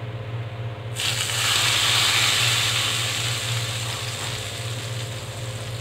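Hot tempering oil with dried red chillies and ground red chilli poured from a ladle into yogurt kadhi, sizzling. The hiss starts suddenly about a second in and slowly dies down, over a steady low hum.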